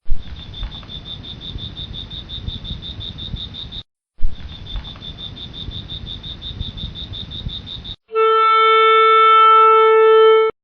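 A rapid, high-pitched pulsed chirping, about seven pulses a second, over a low rumbling noise; it breaks off briefly a little before halfway and then resumes. About eight seconds in, it gives way to a loud, steady, horn-like tone with overtones, which lasts about two and a half seconds and cuts off suddenly.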